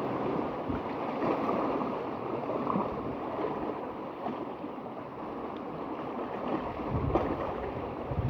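Sea waves washing steadily on the shore, with wind buffeting the microphone, the wind rumble growing stronger near the end.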